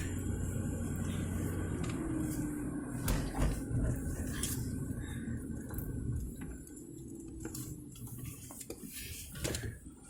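Low rumble of a car's engine and tyres heard from inside the cabin while driving, with a few sharp knocks and clicks.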